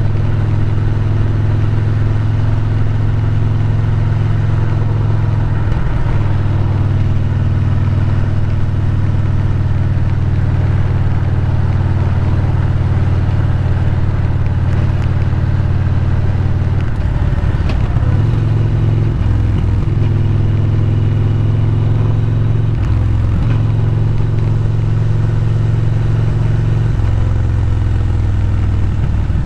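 Motorcycle engine running steadily under way, picked up close by the bike-mounted camera. Its pitch dips and rises a few times in the second half as the throttle changes.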